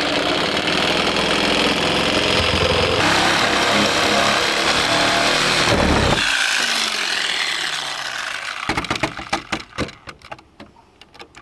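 A handheld power cutter running as it cuts across a car's ram air hood for about six seconds, then let off and winding down with a falling whine. A few light knocks and taps follow near the end.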